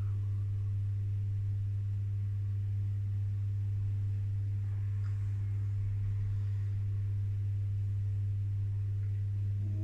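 Steady low electrical hum: one deep, unchanging tone with fainter higher tones above it.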